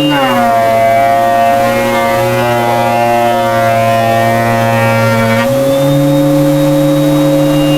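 Electric woodworking machine cutting solid white oak. Its motor's pitch drops right at the start as the board feeds in and the motor slows under load, then rises back to full speed about five and a half seconds in as the cut ends.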